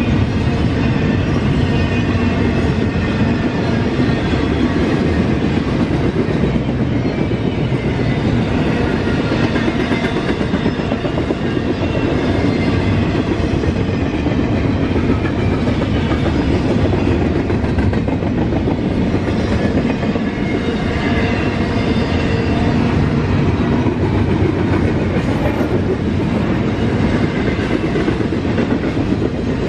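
Norfolk Southern freight train's cars rolling past: a steady, loud rumble with the clatter of wheels on the rails, unbroken throughout.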